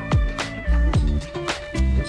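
Background music with a steady beat: a kick drum about twice a second with sharp percussion between.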